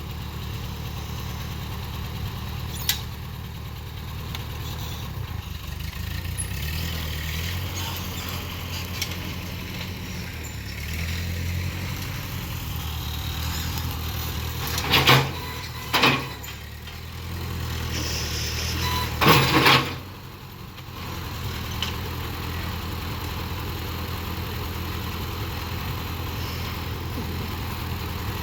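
Engine running steadily, with three loud, sharp bursts of noise about halfway through and a brief drop in level just after them.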